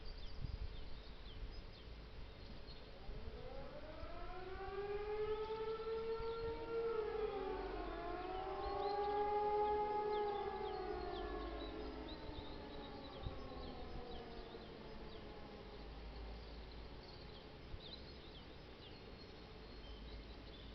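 Several electromechanical civil-defence sirens, E57s among them, sounding the test signal: their tones wind up together about three seconds in, hold at slightly different pitches, then wind slowly down. Faint bird chirps sound throughout.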